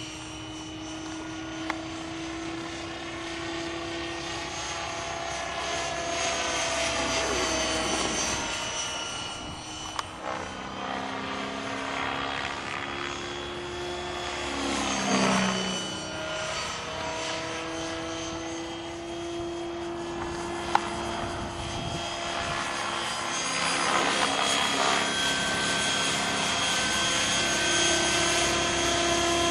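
Electric Swift 16 RC helicopter in flight, its brushless motor whining and 550 mm rotor blades beating steadily. The pitch slides down and back up a few times and the sound swells and fades as it manoeuvres.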